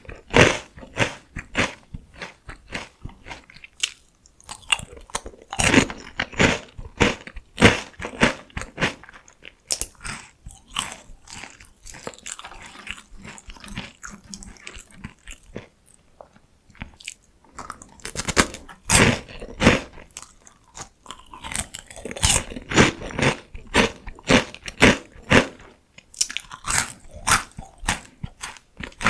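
Close-miked biting and chewing of crunchy PoStick potato sticks: rapid sharp crunches in bursts, softer and quieter for several seconds in the middle as the mouthful is chewed down.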